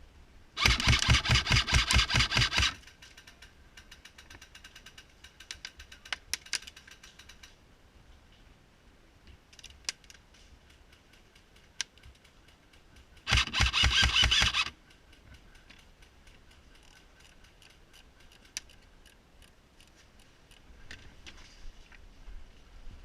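Airsoft electric gun firing two full-auto bursts: a rapid, even clatter of shots for about two seconds near the start and again for about a second and a half midway. Fainter single shots and short strings from other guns are heard in between.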